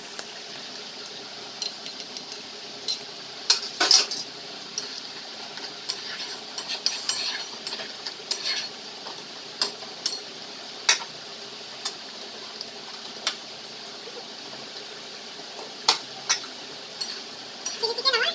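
Chilli chicken gravy sizzling in a pan while being stirred, with a utensil scraping and clinking against the pan a dozen or so times. This is the cornflour slurry being stirred in to thicken the gravy just before it comes off the heat.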